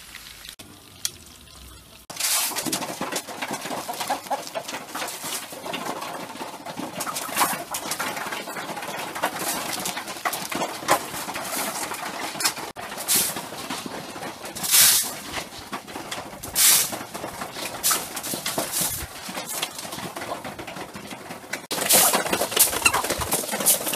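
A flock of chickens clucking and scratching about while feeding, with several short, sharper rustles standing out.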